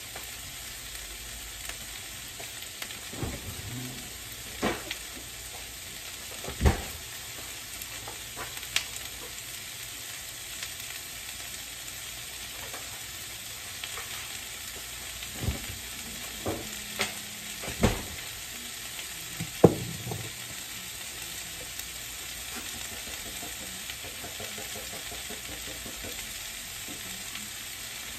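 Chicken strips, onions and shredded carrots sizzling in oil in a frying pan, a steady hiss, while a utensil stirs them, knocking against the pan about eight times in two spells.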